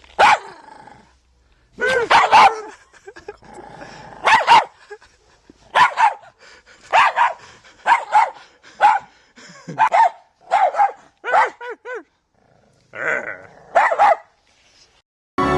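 Dog barking repeatedly: single barks and quick runs of two or three, with short pauses between.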